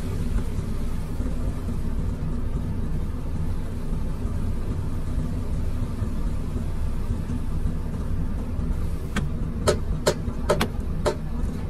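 Komatsu PC210 excavator's diesel engine running steadily, heard from inside the cab. Near the end comes a quick run of about six sharp knocks.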